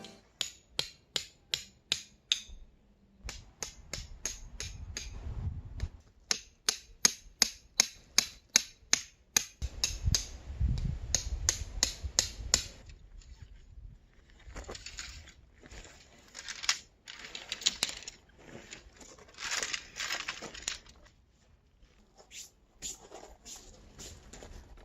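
Runs of sharp, evenly spaced knocks, about two or three a second, in two bursts with a short break between, then irregular rustling and clattering.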